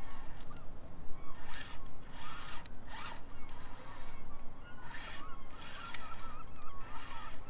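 SCX24-scale micro rock crawler with a prototype Little Guy Racing Parts brushless motor, its motor and drivetrain buzzing in about five short bursts as the throttle is worked on a rock climb.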